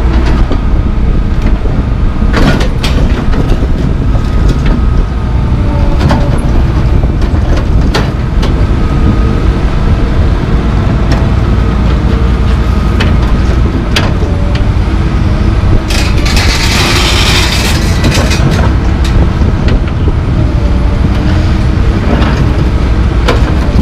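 Komatsu PC220LC hydraulic excavator working: the diesel engine runs steadily while the hydraulic whine rises and falls as the boom and bucket move. Sharp clanks of the steel bucket against broken concrete slabs come repeatedly, and a hiss lasting about two seconds comes a little past the middle.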